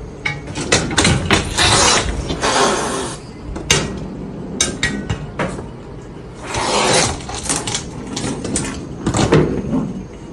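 Two cats scuffling on top of a metal cabinet: clattering and knocking on the metal, with two longer noisy bursts about 2 s and 7 s in.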